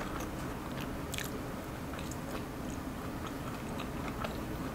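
Close-miked chewing of a mouthful of spaghetti and plant-based meatball: soft, scattered wet mouth clicks over faint steady room noise.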